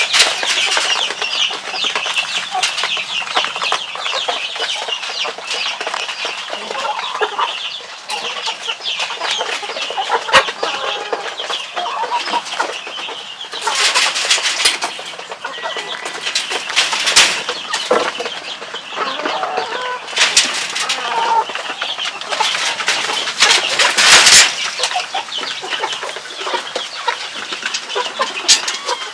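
Chickens clucking, with busy scratching and rustling and a few louder bursts of noise.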